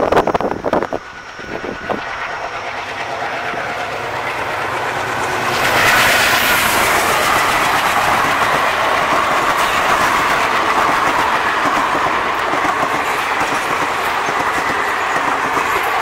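Express train passing at speed behind a WDM3A diesel locomotive: loud bursts of noise in the first second as the locomotive goes by, then the coaches follow with steady wheel clatter over the rail joints and rushing air, growing louder about six seconds in.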